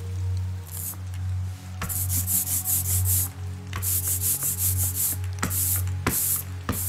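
A rubber brayer rolled back and forth through tacky black linseed printing ink on a glass slab, making a quick hissing stroke with each pass. The strokes come in fast runs, beginning about two seconds in, over soft background music.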